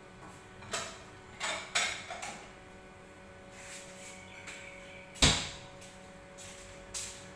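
Scattered knocks and clatter of things being handled, the loudest a single sharp knock about five seconds in, over a faint steady hum.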